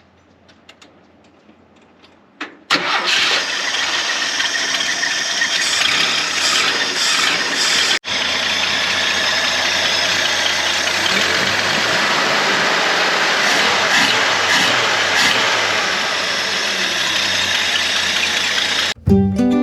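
A 1980s Ford F-100 pickup's carbureted engine starts about two and a half seconds in and runs loud and steady, its spark plugs freshly cleaned of rich fouling. The sound cuts out for an instant about eight seconds in.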